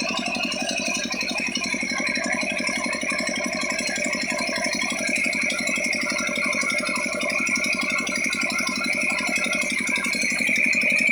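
Old Petter diesel engine running steadily with an atta chakki flour mill, giving a fast, even mechanical rattle.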